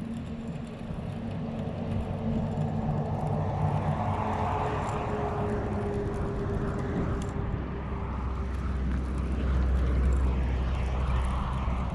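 Engine noise of a passing vehicle: a steady hum that drifts slowly in pitch, with a low rumble swelling near the end.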